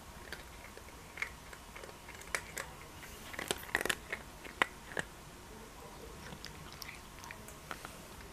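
A cat crunching and chewing food, a scatter of sharp crunches that is densest and loudest between about three and five seconds in.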